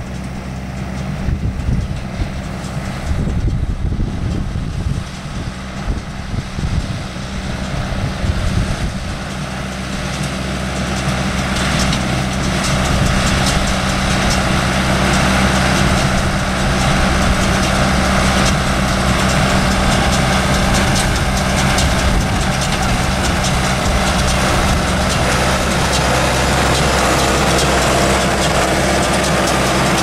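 John Deere 6300 tractor's four-cylinder diesel running steadily under load while pulling a John Deere 328 small square baler, with the baler's pickup and plunger adding a busy mechanical clatter. It grows louder about a third of the way in as the rig comes closer. Wind buffets the microphone in the first third.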